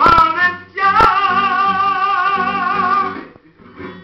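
A man singing to his own acoustic guitar, with a chord strummed about a second in and a long final note held with vibrato that stops about three seconds in.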